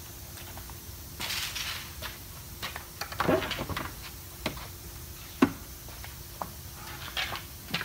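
A repaired wooden fence gate being unlatched and swung open: a sharp metal click of the latch, the loudest sound, about five and a half seconds in, with footsteps and a few light knocks around it. The gate opens without scraping the ground.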